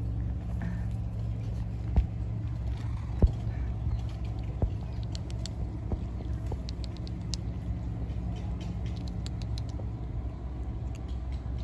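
Kittens crunching dry cat kibble: scattered small crisp clicks and crunches, busiest in the middle, over a steady low rumble.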